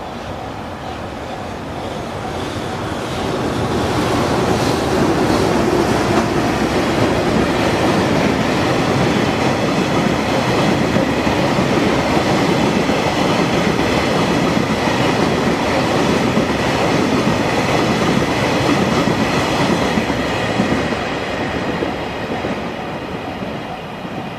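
A train passing at close range, its wheels clattering over the rail joints. The noise builds over the first few seconds, holds for about fifteen seconds, then eases off near the end.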